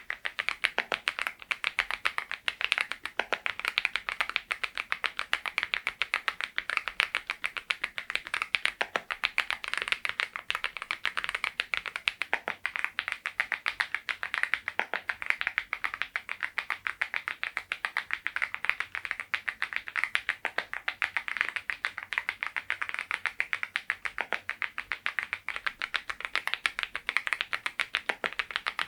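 Continuous fast typing on a Geekstar GKG87R tenkeyless mechanical keyboard fitted with Balhae Blue tactile switches: a dense, even patter of key clicks, several strokes a second.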